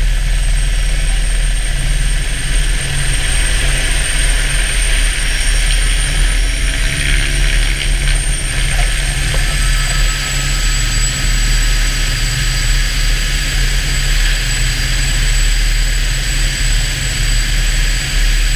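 Helicopter turbine and rotor running steadily, heard from inside the cabin with the side door open. A high turbine whine runs over the rotor's low beat and drops slightly in pitch about halfway through.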